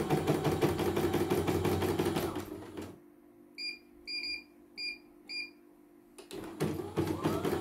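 CNY computerised embroidery machine stitching with a fast, even needle rhythm, stopping about three seconds in. Its control panel then gives four short beeps as its keys are pressed, and the machine starts stitching again near the end.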